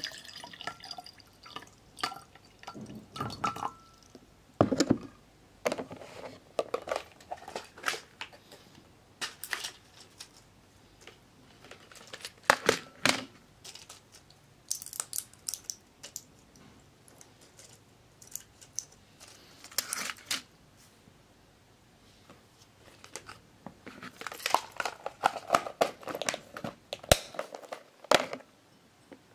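Intermittent small clicks, taps and handling noises at irregular intervals, with a quieter gap of a few seconds past the middle.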